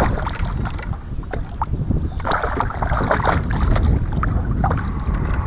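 Wind rumbling on the microphone, with scattered light clicks and taps over it.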